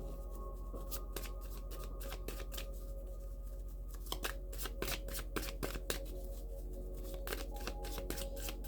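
Tarot cards being shuffled by hand: a run of quick, irregular flicks and snaps that grows busier about halfway through. Quiet ambient music with sustained tones plays underneath.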